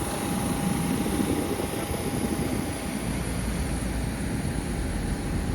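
Steady aircraft cabin noise inside a Boeing 737-800 after landing: a continuous rumble and hiss with a thin, steady whine over it.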